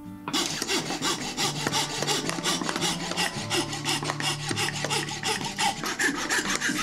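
Coping saw cutting through the end of an American chestnut spoon handle held in a vise, in quick, even rasping strokes about five or six a second.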